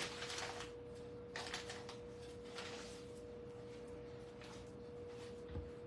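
Faint rustling of a plastic bag as lemons are taken out of it and handled, over a steady faint hum.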